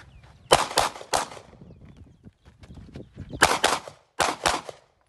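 Gunshots fired in quick strings: three, then three, then two, each a sharp crack with a short echo.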